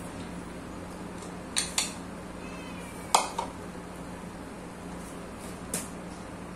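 Chopsticks and a bowl clinking as someone eats and sets the bowl down: a handful of sharp clinks, the loudest about three seconds in.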